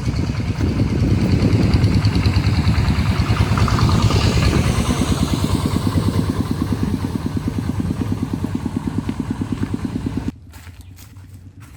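A small engine running with an even, pulsing beat, then cutting off suddenly about ten seconds in.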